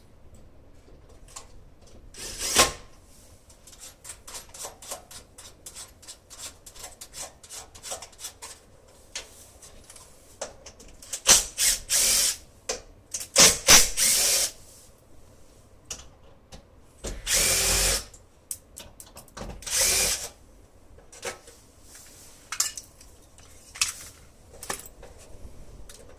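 A power drill run in several short bursts of about a second each, with small clicks and knocks between them.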